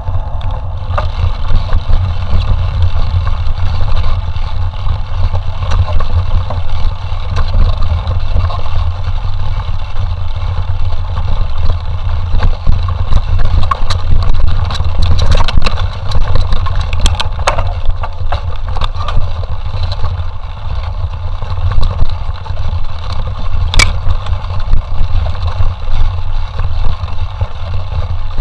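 Continuous wind rumble on the microphone, with scattered rattles and knocks from a mountain bike being ridden over rough trail. The clicks and knocks come thickest in the middle of the stretch.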